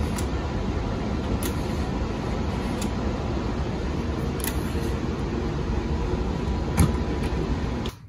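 Steady rushing noise like a ventilation fan or air-conditioning unit, with a faint steady whine and a few soft clicks. It cuts off abruptly near the end.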